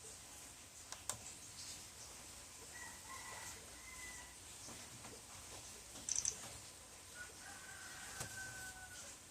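A rooster crowing twice, faint and far off, each crow a held call of a second or more. A few sharp computer clicks, with a quick cluster about six seconds in.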